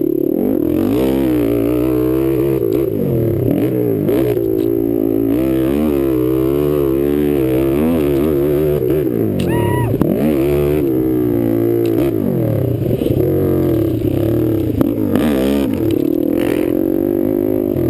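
Sport quad (ATV) engine under hard riding, its pitch repeatedly climbing as it accelerates and dropping off as the throttle is let off for corners and shifts.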